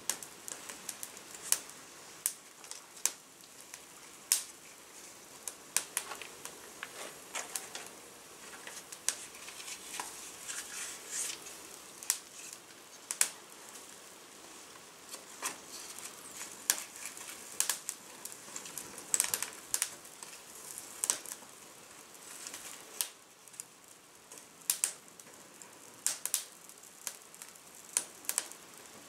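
Small, newly lit kindling fire of birch bark, cardboard, dried grass and wood shavings crackling, with irregular sharp pops over a faint hiss as it catches.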